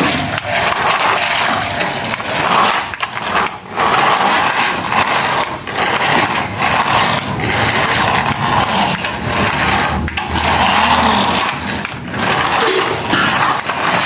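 Remote-control toy car's electric motor whirring and its tyres rolling and scraping on the ground, the sound swelling and fading as the car speeds up and slows, with a few brief drops.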